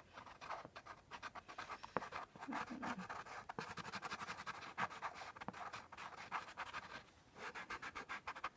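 Coloured pencil scratching on drawing paper in quick, short strokes, with a brief pause about seven seconds in.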